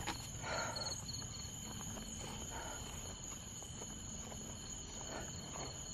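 Crickets and other night insects chirping steadily: a continuous high-pitched trill with a faster pulsing chirp running through it.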